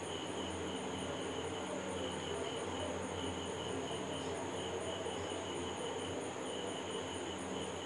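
Insects chirring in the background, a high trill that comes in repeated pulses, over a faint steady hiss.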